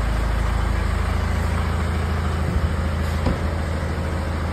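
Car engine idling with a steady low rumble, with a couple of light knocks a little past the middle.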